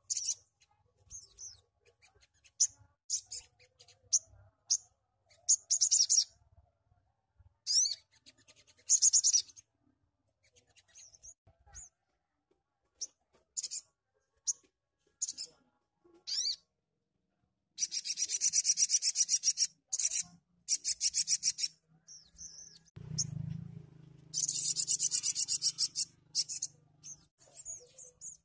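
Sunbird singing: bursts of very rapid, very high, buzzy trills, the two longest lasting a few seconds each, with short high chirps and pauses between them. A low thud about two-thirds of the way through.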